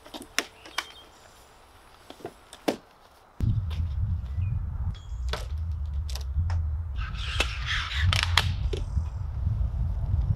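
Roof-top tent being opened: sharp clicks and knocks of its straps and buckles being undone. A little over three seconds in, a steady low rumble sets in, with a rustle of tent fabric a few seconds later.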